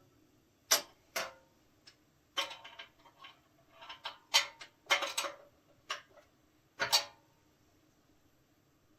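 Irregular clicks and clinks of hand tools and metal parts being handled, in short uneven groups, stopping about seven seconds in.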